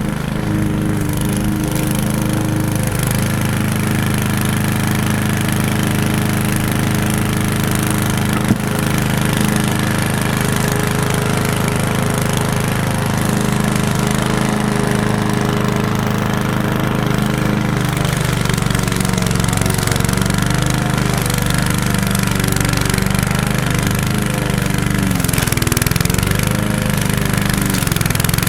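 Lawn mower engine running steadily while mowing tall grass, its pitch wavering up and down in the second half as the load on it changes. A single short click about eight and a half seconds in.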